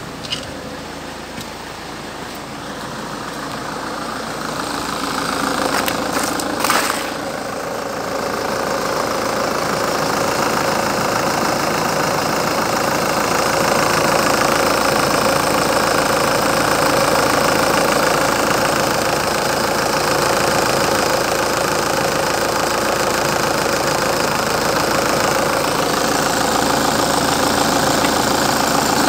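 Citroën C5 X7's 2.0 HDi (RHH, DW10CTED4) four-cylinder turbodiesel idling steadily, heard close up in the open engine bay. It grows louder over the first dozen seconds, with one short knock about seven seconds in.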